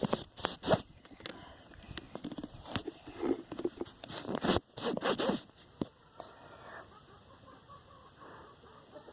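Close handling noise: quick rasping scrapes and clicks, many in the first six seconds, then fainter rustling.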